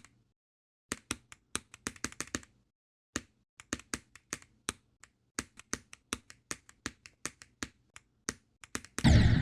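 Sharp, irregular clicks, a few a second with short pauses. Near the end comes a louder, heavier burst.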